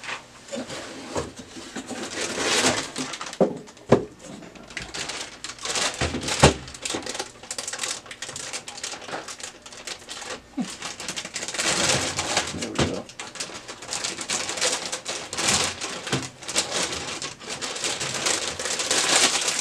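Cardboard box and foil wrapping of a new laser-printer drum unit rustling and crinkling as it is unpacked, with irregular clicks and two sharp knocks about 4 and 6 seconds in.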